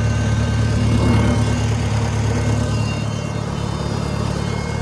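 Oliver Super 66 tractor engine idling steadily.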